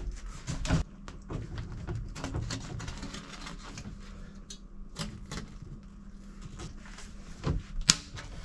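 Corrugated plastic ventilation hose being handled and pushed down into a boat's bilge: scattered light rustles, scrapes and small knocks, with a sharper click near the end.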